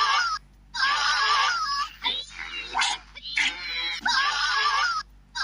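A squealing, pig-like sound effect with a wavering pitch, in phrases about a second long with short breaks. The same sequence repeats about every three seconds, like a loop.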